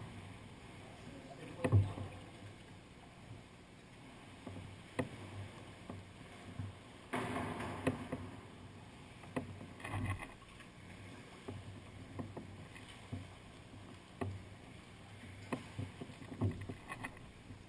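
Quiet water sounds around a sea kayak drifting in a sea cave: small splashes and drips with scattered light knocks, the loudest about two seconds in, and a brief wash of water lasting about a second around seven seconds in.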